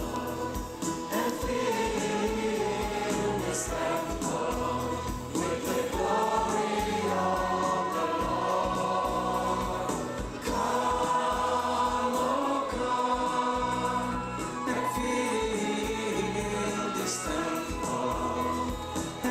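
Christian worship music: a choir singing over instrumental accompaniment.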